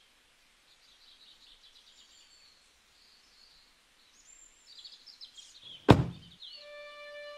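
Birds chirping, then a car's boot lid slammed shut with one loud thud about six seconds in.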